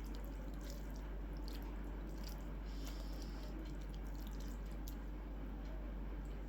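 Close-miked eating: soft, wet chewing and squishing of a chicken curry meal, with small scattered mouth clicks over a steady low hum.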